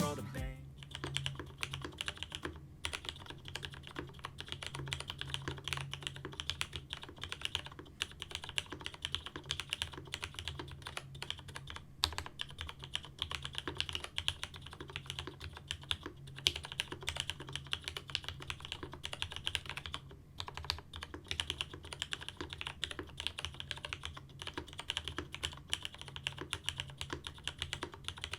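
Typing on a mechanical keyboard with lubed and filmed Cherry MX Hyperglide linear switches, a polycarbonate plate and GMK keycaps. A fast, continuous stream of keystrokes with a few brief pauses.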